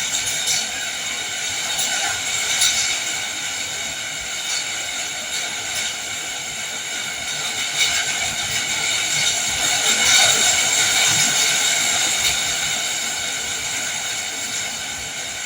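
Heavy rain falling steadily as a dense hiss with scattered patter, swelling slightly about ten seconds in.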